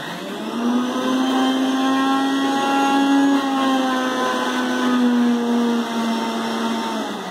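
Electric mixer grinder (mixie) running, grinding mint and raw mango chutney ingredients in its jar: a steady motor hum whose pitch rises slightly, then sags a little, before it cuts off near the end.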